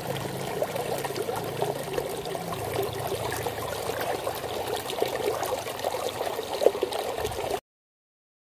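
Water trickling and pouring with many small splashes, cutting off suddenly near the end.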